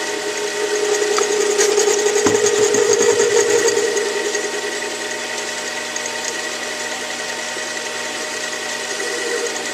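Metal lathe turning a rod down in diameter, the tool taking about 100 thousandths off: a steady motor whine with cutting noise, louder for a few seconds near the start. Running close to the chuck, the cut has little chatter.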